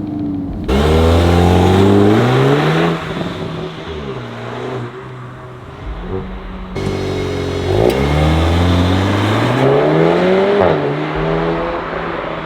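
VW Golf R Mk8's turbocharged 2.0-litre four-cylinder accelerating hard in two runs, each cut in abruptly, the engine note climbing in pitch, dropping briefly at an upshift and climbing again.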